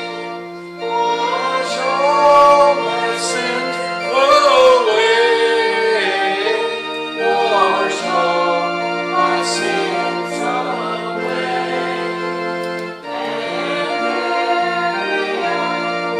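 A congregation singing a hymn together over sustained organ chords.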